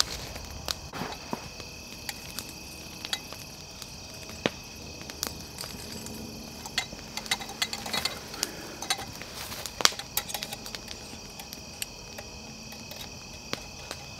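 Steady high chirring of crickets and other insects, with scattered sharp clicks and light taps of gear being handled.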